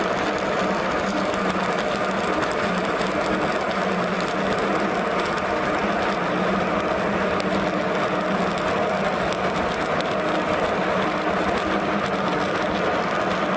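Stick-welding arc burning a 6013 electrode on a vertical joint, crackling and sizzling steadily, with a low steady hum underneath.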